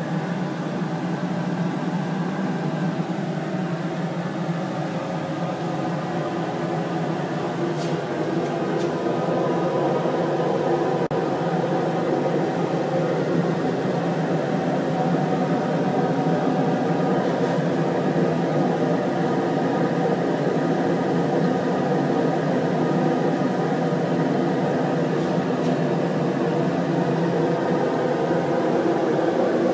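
Steady machine hum and whir from a hot-air rework station blowing air, with a computer-fan magnetic stirrer spinning. It is a constant drone under a hiss of moving air.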